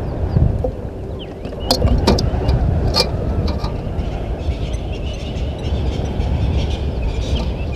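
Vervet monkey clambering on and handling a wildlife camera: a low rumble of handling noise on the microphone, with a few sharp taps and scratches between about two and four seconds in. Faint bird chirps in the background later on.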